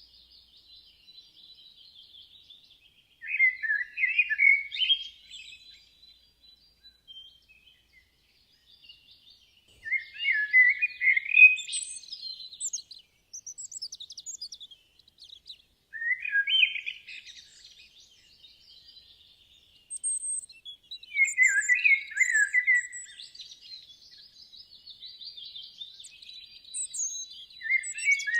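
Birdsong: a bird sings a short phrase of chirps roughly every five to six seconds, while a thinner, high, fainter trill runs between the phrases.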